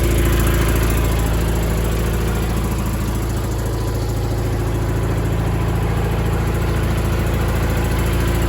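A 1988 John Deere 318 lawn tractor's Onan P218G two-cylinder opposed air-cooled engine runs steadily and evenly after a piston-ring job. It runs without smoking, so the new rings appear to have cured the oil burning.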